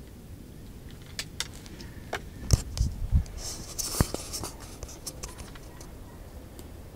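Handling noise from a small action camera being gripped and repositioned: scattered clicks and scrapes, a cluster of low knocks about two and a half to three seconds in, and a sharp click about four seconds in.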